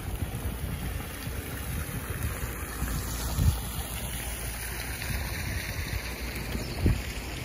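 Fountain water splashing steadily into its basin, an even rushing hiss, over a low wind rumble on the microphone with a few dull thumps.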